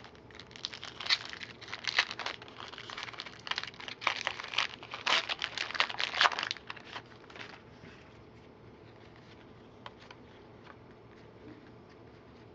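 The plastic wrapper of a 2011 Score football card pack crinkling as it is torn open and handled for about six seconds, then only a few faint clicks.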